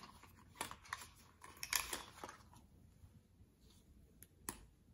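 Faint rustling and small clicks of a lipstick box and case being handled and opened, busiest in the first two seconds, with two sharper clicks near the end.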